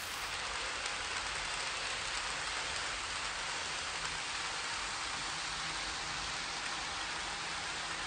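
N-scale model trains running on Kato Unitrack: a steady rolling hiss of wheels on rail with a faint low motor hum.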